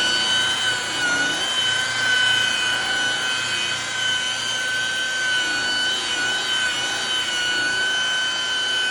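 Makita high-speed rotary buffer running steadily with a wool cutting pad and heavy cutting cream on a plastic headlight lens, its motor giving a high, even whine.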